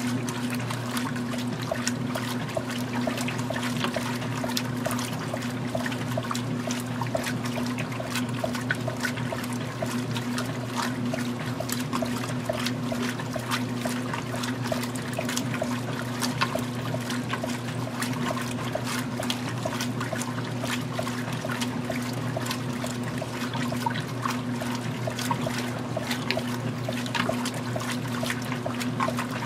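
Magic Chef 20-pound top-loading washing machine agitating during its wash cycle. The motor hums steadily while the agitator churns and splashes the water and clothes in the tub.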